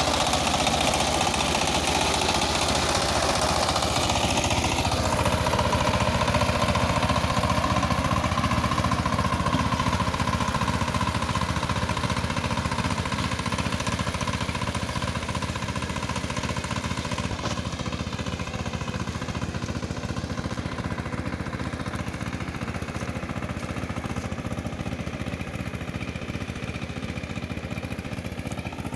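ACI R28 walk-behind power tiller's single-cylinder diesel engine running steadily under load as its rotary blades till wet, muddy soil, with a rapid even chugging; it grows gradually fainter as the tiller moves away.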